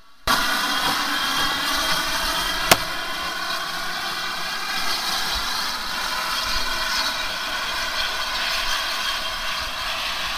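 GWR steam tank engine No. 4247 moving off along the line, with a steady hiss of steam and no clear exhaust beat. A single sharp click about a quarter of the way in is the loudest moment.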